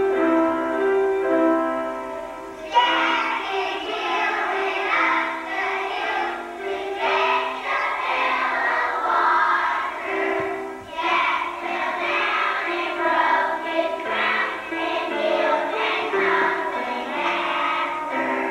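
A group of young children singing a song together over piano accompaniment. The voices come in about three seconds in, after a short stretch of piano alone.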